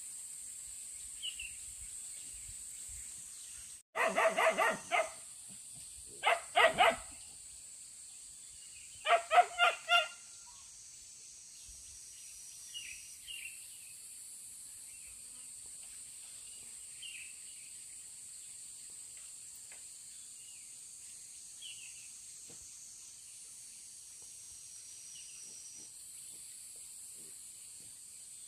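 A dog barking in three short bouts of quick barks, a few seconds apart, with quiet between.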